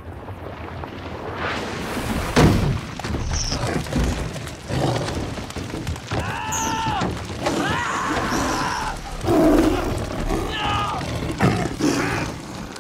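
Film sound mix: repeated thuds and splashes as flying fish strike a lifeboat, a young man crying out in drawn-out yells around the middle, and a Bengal tiger snarling near the end, over orchestral music.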